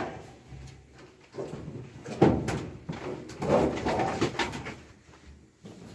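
Clothes dryer being shoved back against the wall: its feet scrape and squeak in short pitched stretches on the floor, with a knock a couple of seconds in.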